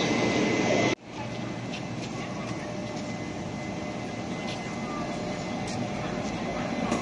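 A Fuxing express hauled by E200-series electric locomotive E240 pulling out of the station, its running noise growing steadily louder. About a second in, the sound cuts off abruptly before the departure noise starts.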